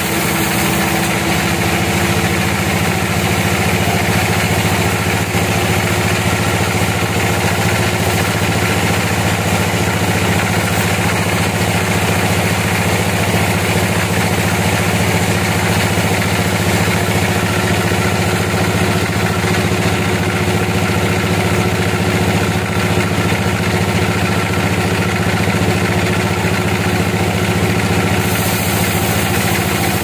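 Bandsaw mill running steadily, its band blade cutting lengthwise through an old teak log. The mill's drive hums at a steady pitch, and a higher hiss from the cut comes in about a second in and eases off shortly before the end.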